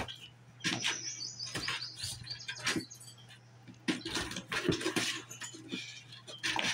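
Kittens clawing and scrambling at a cardboard box: a run of short scratchy scrapes and knocks on the cardboard. High thin chirps sound through the first couple of seconds and again near the end, over a low steady hum.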